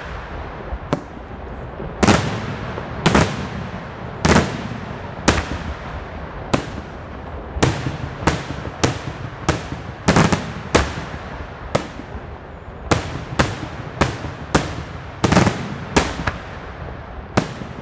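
Daytime fireworks display: aerial shells bursting in a rapid, irregular series of loud bangs, each followed by a short rumbling echo. The bangs come closer together in the second half.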